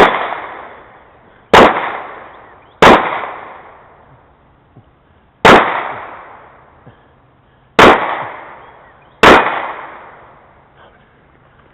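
Six handgun shots fired at an uneven pace, each sharp crack followed by an echo that dies away over a second or so.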